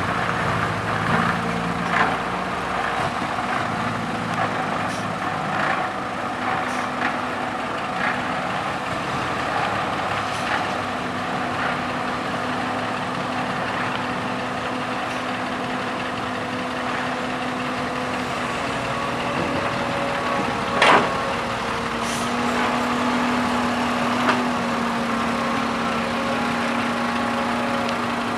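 Diesel engine of a Kobelco Yutani hydraulic excavator and a six-wheel dump truck running steadily as heavy earthmoving machines work, with scattered metallic knocks and clanks and one sharper knock about 21 seconds in.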